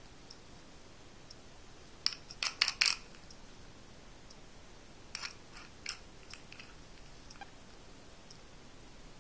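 Master Lock combination padlock being worked by hand, with sharp metallic clicks and rattles. There is a quick run of them about two seconds in and a few more around five to six seconds in, as the jammed lock is tried.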